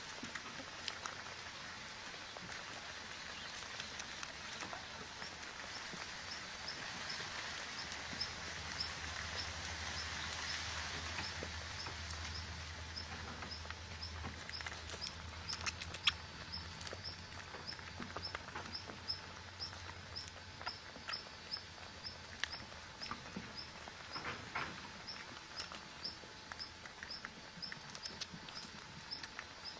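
Outdoor ambience: a short, high chirp repeated steadily about twice a second over a faint hiss, with scattered soft rustles and clicks. A low hum rises and fades in the middle.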